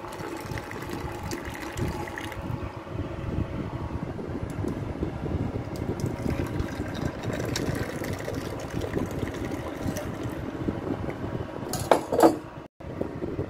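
Milk tea pouring in a steady stream into glass cups, filling them one after another. About twelve seconds in come a couple of sharp knocks, then the sound breaks off abruptly for a moment.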